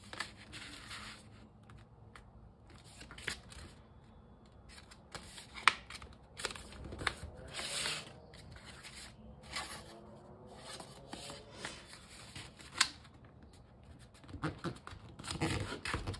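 Paper plates being folded by hand and pressed flat onto a cutting mat: paper rustling and sliding, with scattered sharp clicks as the folds are creased.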